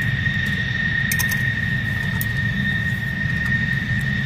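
Steady high-pitched whine over a constant low rumble, typical of jet-turbine machinery running on an aircraft flight line.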